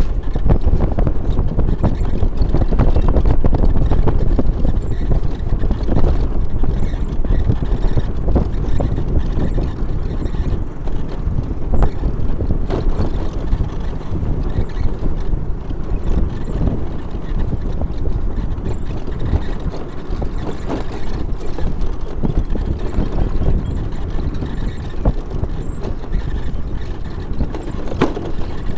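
Wind buffeting the microphone over the rumble of a vehicle travelling along a rough road, with frequent small knocks and jolts.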